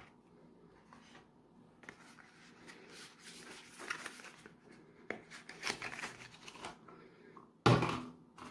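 Hands opening a cardboard soap carton: rustling and scraping of the card and its paper, with small clicks, and one sharp knock near the end.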